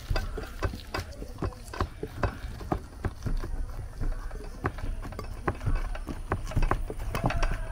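Hands kneading and mixing flour dough in a glass bowl: irregular taps and soft thuds, a few a second, as the dough is pressed and squeezed against the bowl.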